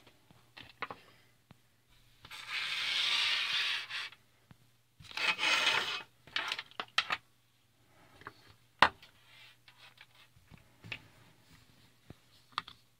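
Handling noise on a desk: rubbing and rustling as parts and tools are moved about, in two longer bursts, followed by scattered light clicks and taps, the sharpest a little before nine seconds in.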